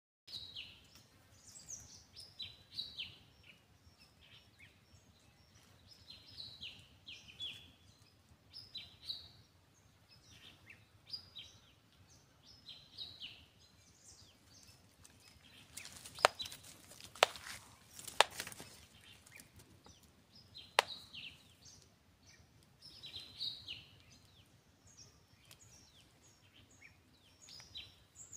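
Small birds chirping, in clusters of short, high, falling notes every second or two. Four sharp clicks come just past the middle, three in quick succession and one a couple of seconds later.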